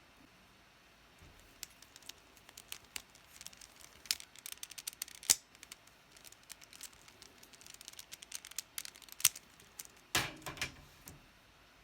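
Plastic Rubik's cube pieces being handled, giving scattered faint clicks and clacks, a little denser from about four seconds in and again near ten seconds.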